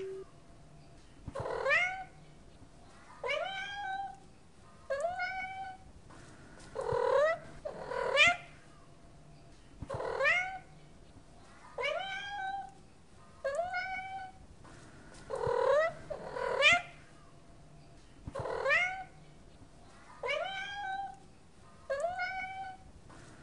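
A cat meowing over and over, about one meow every one and a half to two seconds; each call rises in pitch and then holds briefly.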